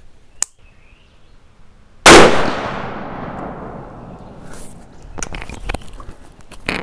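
A single shot from a .30-06 bolt-action rifle about two seconds in, firing a handload of a 200-grain Barnes TSX bullet over 51 grains of H4350, its echo dying away over about two seconds. A few light clicks follow near the end.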